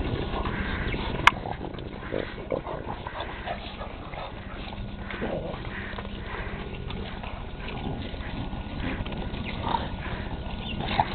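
Several French bulldogs grunting and snuffling in short, irregular bursts of breath as they play together at close quarters. A single sharp click stands out about a second in.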